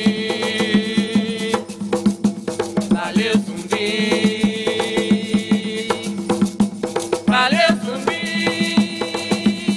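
Afro-Umbanda ceremonial music: hand drums and rattles keep a fast, steady rhythm under long held high notes that start with a rising glide and repeat every few seconds.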